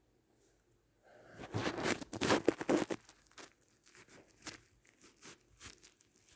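Crinkling and crackling of something being handled close by, starting about a second in and loudest for about two seconds, then thinning to scattered small crackles.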